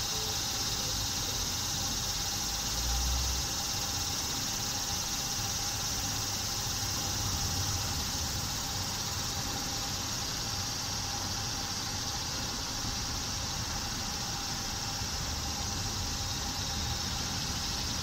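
Steady high-pitched insect chorus, an unbroken drone, with a brief low rumble about three seconds in.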